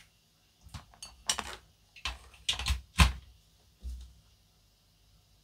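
A quick run of sharp clicks and clattering knocks from small hard objects being handled, the loudest about three seconds in.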